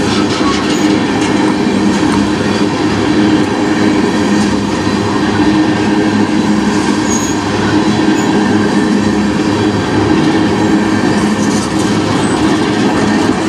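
Freight train tank cars rolling past: steady, unbroken rumble and clatter of steel wheels on the rails, with a low steady hum beneath.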